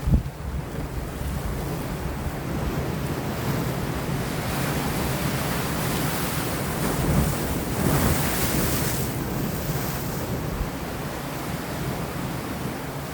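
Sea waves washing and breaking against rocks, with wind buffeting the microphone underneath. One wave swells and breaks loudest about eight seconds in.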